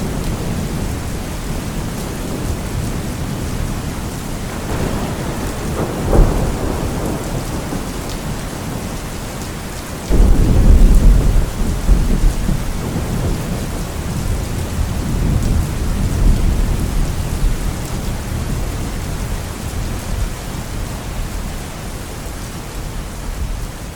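Steady rain with thunder: a rumble swells about five seconds in, and a sudden loud thunderclap about ten seconds in rolls on for several seconds before fading back under the rain.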